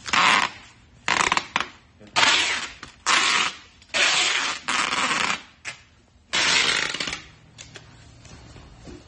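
Packing tape pulled off a handheld tape dispenser in about seven short, loud, hissing pulls, wrapping plastic-film-covered aluminium profiles. The pulls stop about seven seconds in.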